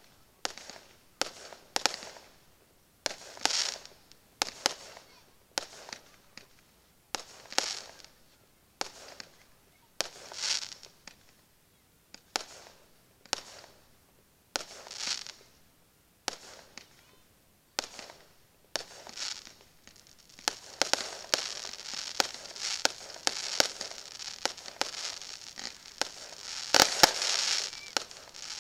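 Fireworks going off: sharp bangs and short crackling hisses every two seconds or so. About two-thirds in, the crackling runs together with quick pops, and the loudest bang comes near the end.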